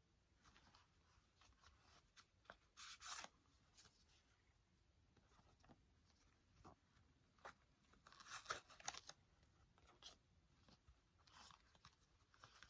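Faint handling sounds of a quilted leather Chanel flap card holder being turned over and its flap opened and closed: soft rustles, crinkles and light clicks, with louder crinkling about three seconds in and again around eight to nine seconds.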